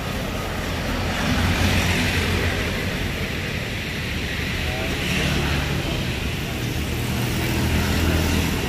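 Street traffic, mostly motorbike engines running past, getting louder about a second and a half in and again near the end.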